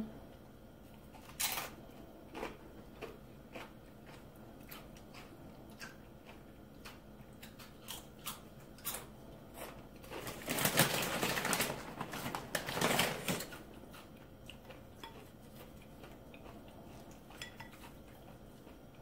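Tortilla chips being eaten with guacamole: scattered light crunches and clicks, with a denser crunching, crinkling stretch about ten seconds in that lasts some three seconds.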